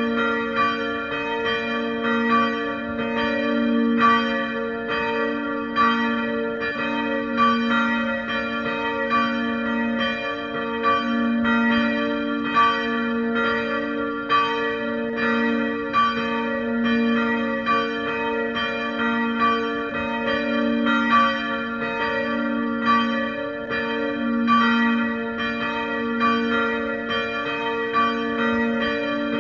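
Two church bells swinging and ringing together. Their clapper strikes come less than a second apart in an uneven alternation, over a sustained, overlapping hum.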